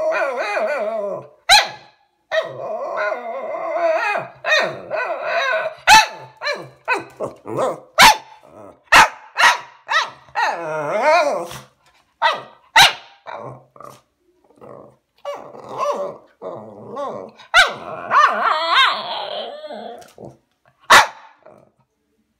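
A Shih Tzu 'talking': long, wavering, drawn-out vocal grumbles and growls, broken every few seconds by short, sharp barks.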